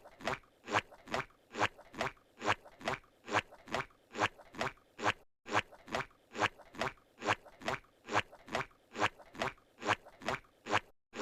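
Squidward's cartoon walking sound effect from SpongeBob SquarePants: a steady run of footsteps, about three a second, with a short silent break about every five and a half seconds where the loop restarts.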